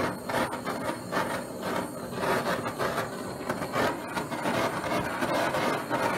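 Handheld gas blowtorch burning steadily, its flame making a hissing rush with an uneven flutter as it scorches damp paper-covered wood.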